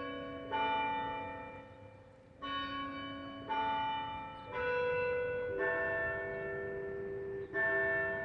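Church bells ringing: about six strikes of different notes, roughly a second apart, each ringing on into the next, with a short fading lull about two seconds in.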